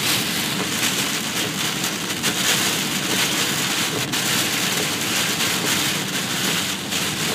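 Heavy rain pelting a car's windshield and roof, heard from inside the cabin as a dense, steady patter with tyre noise on the wet road. A few louder hits stand out near the middle and toward the end.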